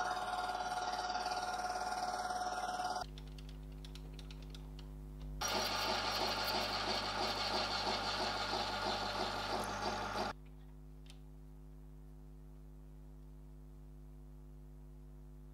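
Mini metal lathe turning an aluminium tube, the cutting tool scraping on the spinning workpiece over the steady hum of the motor. The cutting comes in two stretches with about two seconds of plain hum between them, and stops about ten seconds in, leaving only a low steady hum.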